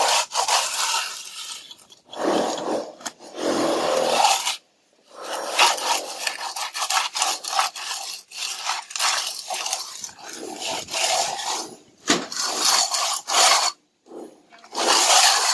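Plastering tools scraping and rubbing over wet mortar on a wall, in repeated strokes with short pauses between them.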